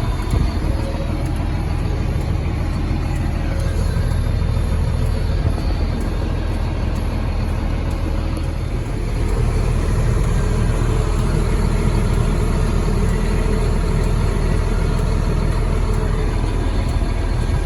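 Combine harvester running steadily during corn harvest, a constant low engine rumble with machinery noise that gets a little louder about nine seconds in.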